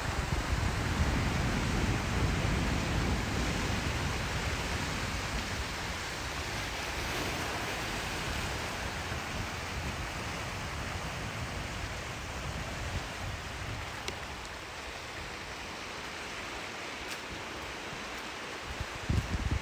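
Ocean surf washing onto the beach as a steady rushing hiss. Low wind rumble on the microphone is stronger in the first few seconds and again near the end.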